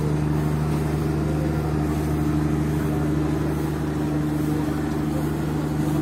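Steady low drone of a moored ship's diesel engine running at idle, even and unchanging.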